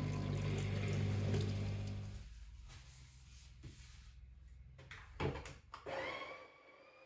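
Sage espresso machine's pump humming steadily while it runs water through the group head during preheating, stopping about two seconds in. Then a few sharp clacks as the portafilter is handled and fitted, and a faint steady high tone begins near the end.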